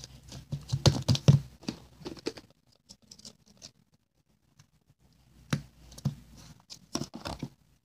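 Slime being pushed into a clear plastic cup and the container handled by hand: a quick run of small clicks, taps and rustles for the first couple of seconds, then a few louder clicks of plastic near the end.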